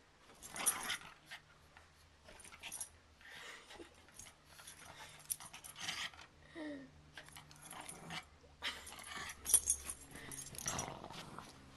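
Pug making a rough, purring breathing noise in a run of short noisy breaths, one after another.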